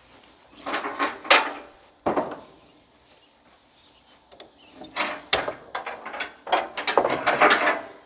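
Ratchet tie-down strap on a log trailer being released: metallic clicks and rattles of the ratchet and hooks in two bursts, with a single knock in between.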